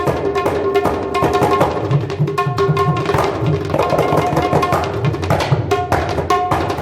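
Tabla played in a fast, dense stream of strokes, with the ringing tuned tone of the dayan over the low bass strokes of the bayan.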